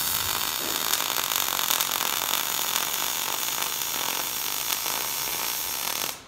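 MIG welding arc running one continuous bead on steel exhaust tubing, a loud, steady hiss that stops abruptly about six seconds in when the trigger is released.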